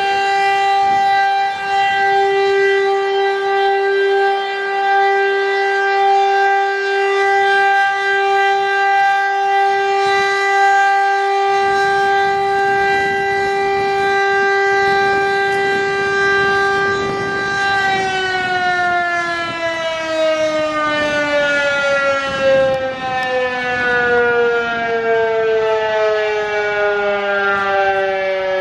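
Rotary siren sounding the fire-alarm signal, an imitation of a KIRKE 400. A steady loud tone is held for about eighteen seconds, then the siren is cut off and winds down in a long falling glide.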